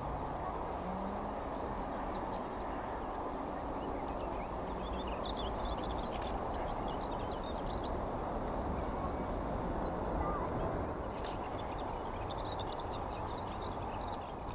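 The CFM56-7 jet engines of a Boeing 737-700 running as the airliner rolls out along the runway after touchdown: a steady rumble, with a faint rising tone near the start. Birds chirp high above it, around the middle and again near the end.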